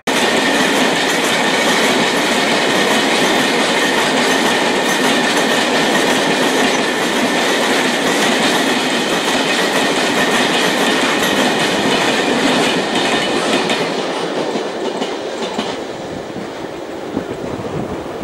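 Freight train of tank wagons rolling past, wheels clattering over the rail joints with a steady high tone over the noise. The sound dies away over the last few seconds as the end of the train passes.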